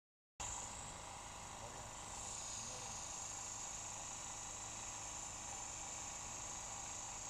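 Steady, high-pitched chirring of insects in the grass, holding on without a break.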